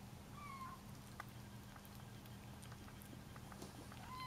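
Bengal kitten giving short, high mews, each falling slightly in pitch: one about half a second in and another near the end.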